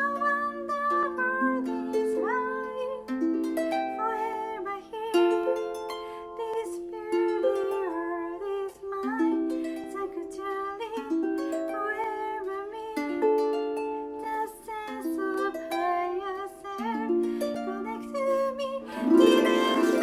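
Lever harp plucked in flowing, overlapping notes and chords, with a woman singing over it. The playing swells louder near the end.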